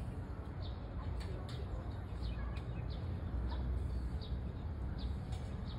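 A small bird chirping repeatedly, short high falling notes about twice a second, over a steady low rumble.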